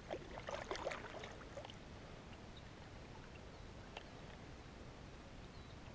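Brief light splashing and dripping of water beside a kayak in the first second and a half, then only faint background noise with a single small click near the middle.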